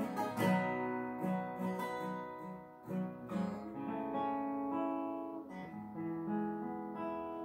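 Acoustic guitar played softly, single picked notes and light strums ringing out and dying away, getting quieter.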